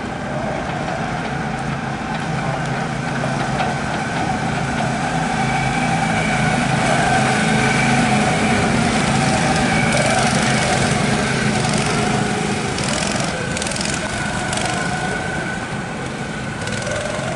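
Several go-kart engines running as the karts lap the track, their pitch rising and falling through the corners; the sound swells as the pack passes close about halfway through, then eases as they move away.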